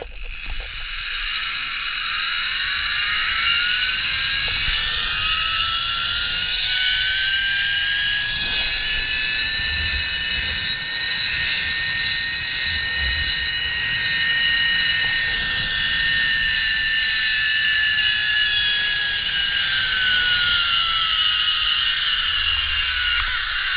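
Zipline trolley's pulley wheels running along a steel cable: a loud whine that climbs in pitch over the first few seconds as the trolley speeds up, holds high, then drops near the end as it slows, over a steady hiss.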